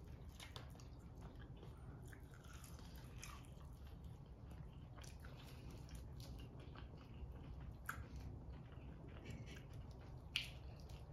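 Faint chewing and biting of chicken wings, with small scattered wet clicks and smacks, a sharper click about eight seconds in and another a little after ten seconds.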